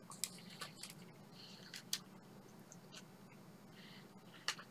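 Faint chewing of a soft marshmallow treat, with a few soft mouth clicks scattered through, over a low steady hum.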